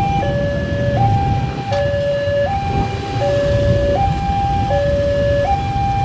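Railway level-crossing warning alarm sounding a steady two-tone hi-lo pattern, each tone held about three-quarters of a second, signalling an approaching train. A low rumble of traffic or engine noise lies underneath.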